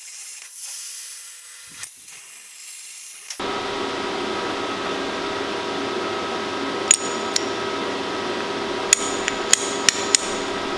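A few seconds in, a steady mechanical hum starts and runs on. Over it, in the second half, a tool strikes metal sharply about seven times, each strike ringing bright and short.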